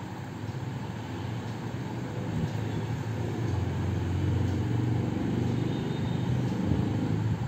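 Low rumble of passing vehicle traffic, swelling over a few seconds and easing off near the end.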